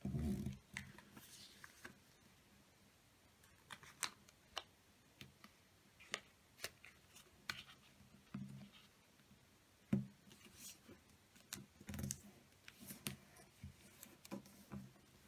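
A square of double-sided origami paper being folded and creased by hand: scattered crisp rustles and clicks of the paper, with a few soft low thumps of hands pressing it flat against the table. The sharpest click comes about ten seconds in.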